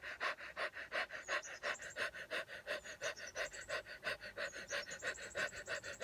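Rapid, rhythmic panting breaths through the mouth, about six a second, in an even run: the fast breathing round of the simha kriya yoga breathing practice.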